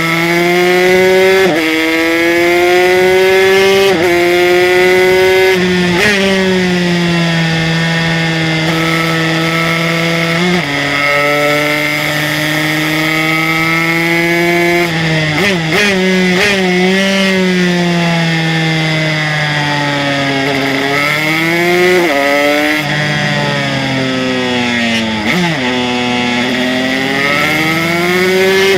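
Aprilia RS125's two-stroke single-cylinder engine, bored out to 144cc with an HTM Racing kit, running hard at high revs on a racing lap. The pitch steps up and drops at each gear change, with a quick run of downshifts about halfway through and more shifting down and back up near the end.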